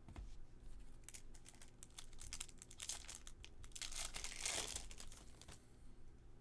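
Baseball card pack wrapper crinkling and tearing open by hand, a run of crackles that grows to the loudest tearing about four to five seconds in.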